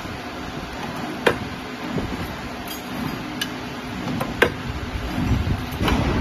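Factory workshop noise: a steady machine hum under a few sharp clicks and knocks, clearest a little over a second in and past the four-second mark.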